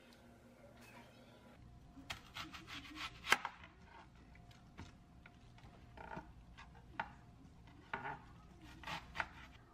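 Chef's knife cutting through a whole onion and knocking on the cutting board: an uneven series of cuts and knocks that begins about two seconds in, the sharpest a little after three seconds, with more groups of cuts near the end.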